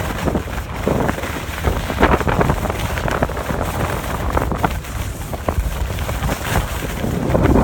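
Wind buffeting the microphone of a phone carried by a skier moving downhill, over the hiss and scrape of skis on groomed snow.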